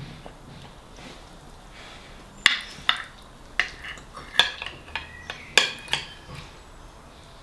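Metal knife and fork clinking against a dinner plate while cutting food: a quick run of about nine sharp clinks between about two and a half and six seconds in.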